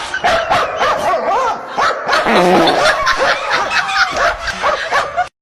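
A dog barking and yipping, with pitched whines that rise and fall, until the sound cuts off suddenly near the end.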